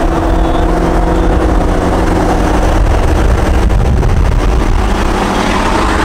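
Ford Mustang's Gen 1 Coyote 5.0 L V8 running at a steady engine speed while the car is being driven, a loud, deep exhaust note.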